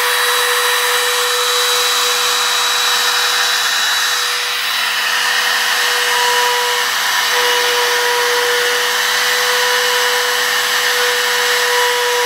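Genmitsu trim router, the spindle of a 4040 Pro CNC, running at full speed with a steady high whine as the machine starts its engraving job in MDF.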